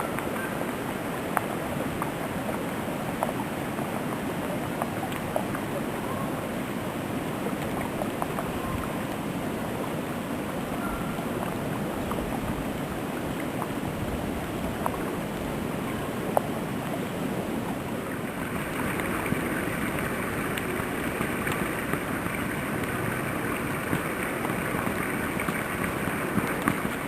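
Strong storm wind blowing, rushing and buffeting the microphone, with scattered small ticks; the hiss grows brighter about two-thirds of the way through as the gusts pick up.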